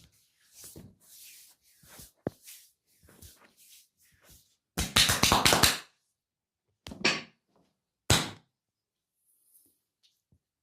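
Massage by hand on skin: soft rubbing strokes, then about halfway through a fast run of slaps lasting about a second, the loudest part, followed by two single slaps.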